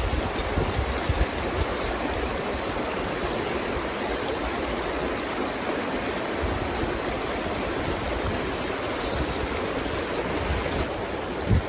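River water rushing steadily, with irregular low buffeting of wind on the microphone.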